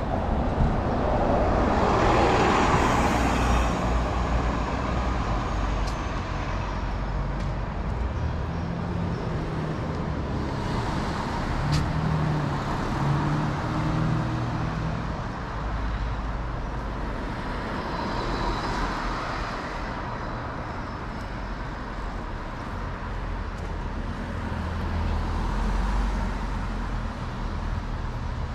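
Road traffic on a city street: a steady low rumble of cars, with vehicles passing one after another. The loudest pass comes a couple of seconds in.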